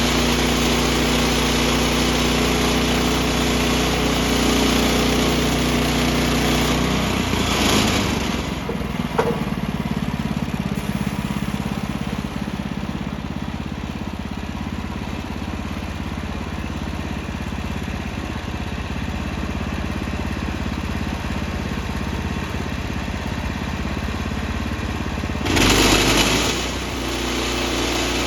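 Portable bandsaw sawmill's small gas engine running steadily during sawing; its note changes about seven seconds in. A brief loud rushing noise comes near the end.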